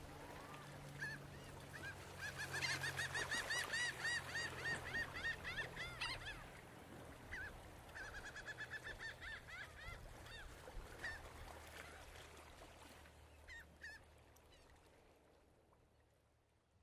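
A flock of birds calling in rapid runs of short, arched calls, one run about a second in and another about seven seconds in, over a low steady hum, then fading out toward the end.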